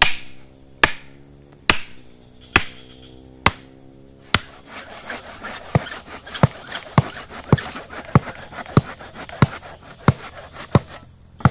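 Rhythmic hammer blows on wood as a pole or stake is driven in: steady strikes a little faster than one a second, then quicker, lighter strikes about once every half-second from about five seconds in.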